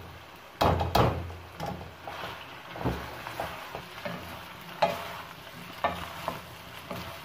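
Boiled macaroni tipped from a colander into a steel pan of frying vegetables, with two loud knocks about a second in, then a wooden spatula stirring and scraping the pan with scattered clicks over a light sizzle.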